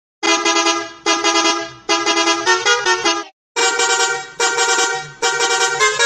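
Bus horn sounding a short tune: two long blasts, then a quick run of changing notes. After a brief pause about three seconds in, the same phrase repeats.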